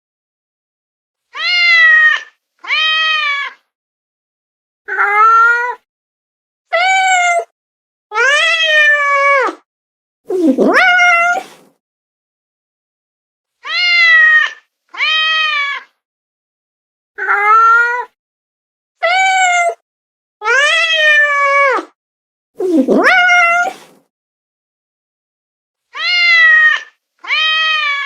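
Domestic cat meowing, about fourteen separate meows with dead silence between them. Most are short and rise then fall in pitch, often in quick pairs; a few are longer and drawn out.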